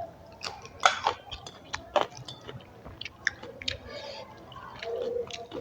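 Close-up chewing of rice and curry: wet mouth smacks and clicks at an uneven pace, the loudest about a second in and again at two seconds.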